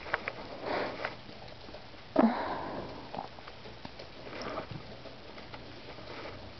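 Kitten sneezing and sniffing: a few soft, breathy sniffs and one sharper, louder sneeze about two seconds in.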